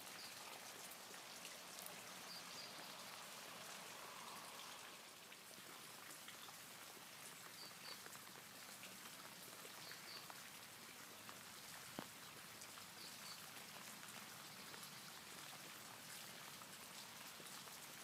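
Faint, even patter of light rain falling on a pond's water surface, with one sharper click about twelve seconds in.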